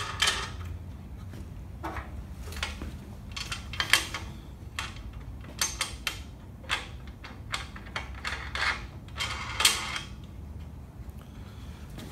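Lock knobs being fitted and screwed onto the trunnion pins under a bandsaw's cast-iron table: irregular clicks and clatters of small hardware against metal, thinning out near the end.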